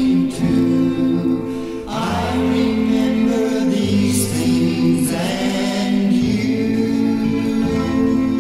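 1960s pop record with voices singing long held notes over the backing, a new sung phrase starting about two seconds in and another about five seconds in.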